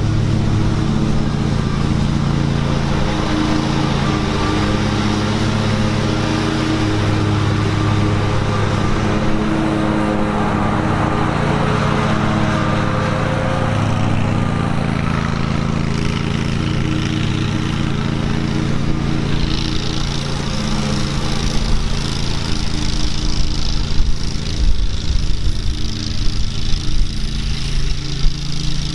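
Husqvarna Z560 zero-turn commercial mower's engine running steadily at mowing speed, growing fainter after about two-thirds of the way through as the mower moves off.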